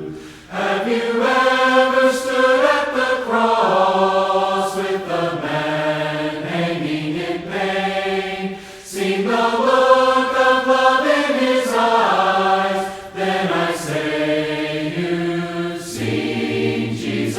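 Choir singing a hymn in harmony, several voices moving together in long sung phrases with brief breaks between them.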